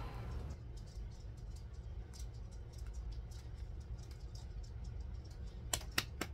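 Quiet low hum with faint scattered ticks, then a quick run of sharp clicks, about three or four a second, starting near the end.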